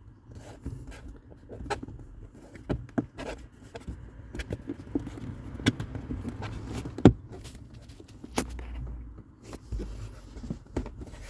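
Plastic trim cover being pressed into place by hand, its retaining clips pushed into their holes: irregular clicks, taps and rubbing of plastic, with the sharpest knock about seven seconds in.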